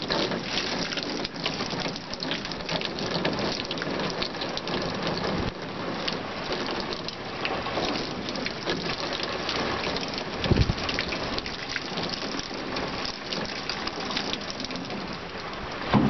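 Water poured from a plastic bucket into a corrugated hose, overflowing and splattering steadily onto a truck bed. There is a single low thump about ten and a half seconds in.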